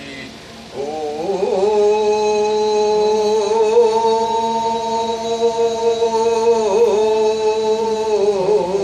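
A man's solo voice singing a kiyari work song in a long, drawn-out note. The note begins about a second in, is held steadily, and wavers in pitch twice before ending.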